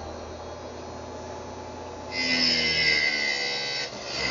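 Wood-Mizer band sharpener working on a sawmill band: its electric motor hums steadily, and about halfway through the grinding wheel grinds a tooth for nearly two seconds with a high-pitched grinding sound.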